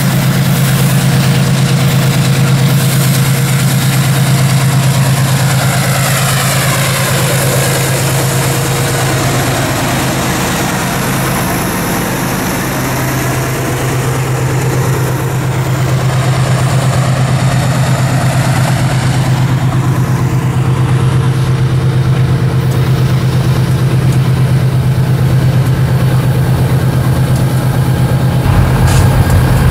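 Diesel locomotive engines running with a steady low hum. Near the end the rumble grows louder as a set of light diesel locomotives approaches.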